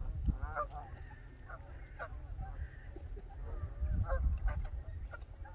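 A flock of Canada geese honking, several short calls in scattered bursts, over a low rumble that swells at the start and again about four seconds in.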